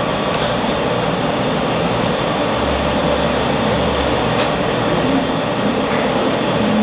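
Steady, loud background noise with no distinct events.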